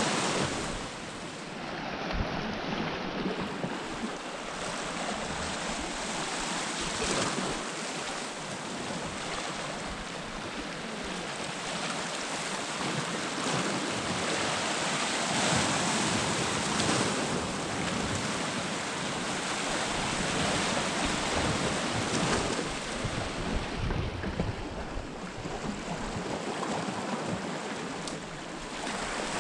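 Sea surf washing and breaking over a rocky shoreline: a steady rushing that swells and ebbs.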